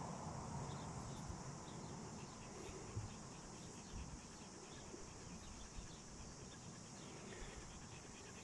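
Faint, steady high-pitched insect chorus over a low rumble, with a few small clicks about three and four seconds in.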